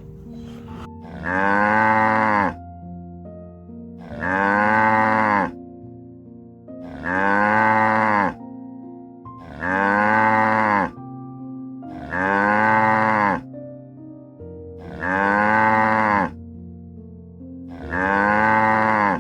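A cow mooing: the same drawn-out call, rising and then falling in pitch, repeated seven times at an even pace of about one every two and a half to three seconds.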